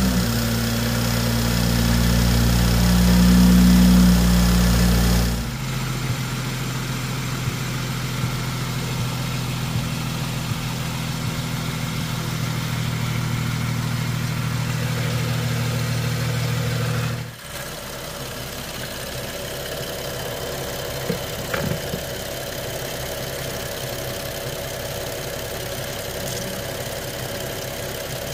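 BMW N55 3.0-litre turbocharged straight-six idling just after being started. It runs louder for the first five or so seconds, then holds a steady, quieter idle. The engine is being run up to temperature so that trapped air bleeds out of the cooling system after a thermostat replacement.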